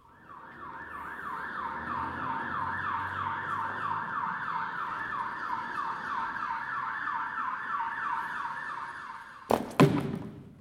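Emergency-vehicle siren sound effect played over the theatre's sound system: a fast, steady yelp sweeping up over and over, several times a second. Near the end it cuts off as two loud crashing impacts hit in quick succession.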